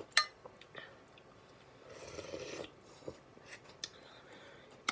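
Eating noodles from a bowl: a sharp click of the spoon against the bowl just after the start, a short slurp about two seconds in, and a few lighter taps of the utensils near the end.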